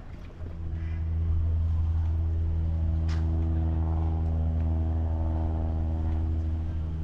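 An engine running at a steady low idle, a deep even hum that comes in about half a second in and swells over the next second. A single sharp click sounds about three seconds in.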